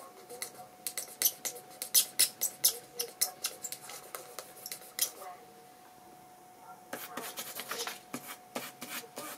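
Bamboo pen scratching on sketchbook paper in quick short hatching strokes, about five a second. The strokes stop briefly past the middle, then start again. A faint steady hum runs underneath.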